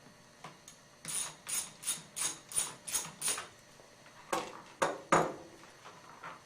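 A socket ratchet wrench clicking in a quick run of about seven clicks as it loosens a screw, followed by a few louder clacks of metal on metal.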